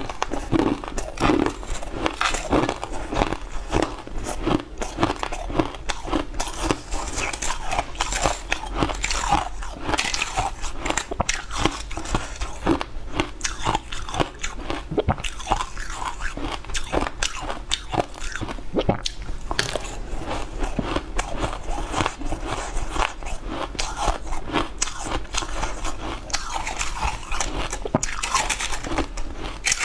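Close-miked crunching and chewing of shaved ice in the mouth, many crisp crunches in quick succession.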